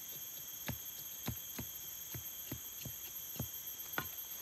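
A machete blade knocking and scraping against a plant stem as its green skin is peeled off, a string of sharp knocks roughly two a second. A steady high insect drone runs underneath.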